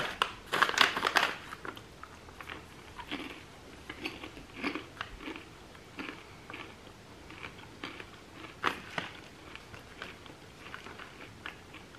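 Someone chewing caramel popcorn with cashews: a dense burst of crunching at the start, then scattered crisp crunches through the rest, one louder near nine seconds in.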